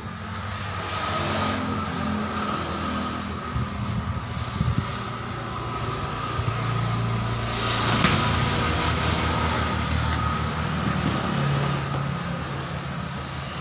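Motor vehicle engine running, its sound swelling and easing as traffic passes, with a few knocks a little under five seconds in and a sharper, louder knock at about eight seconds.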